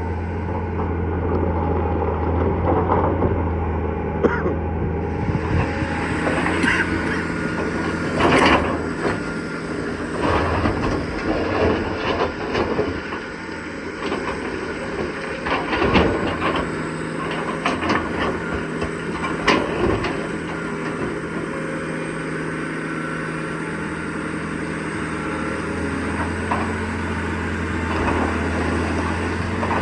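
Heavy diesel machinery running under load, with a steady low engine drone that shifts in pitch partway through, and several loud metallic clanks and knocks, the loudest about 8, 16 and 20 seconds in.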